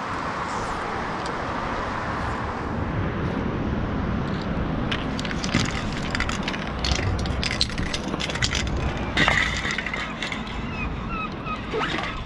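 Aerosol spray paint can hissing, fading out after about three seconds, then a run of sharp clicks and rustles from footsteps and handling as the person walks off, over a low rumble of city traffic.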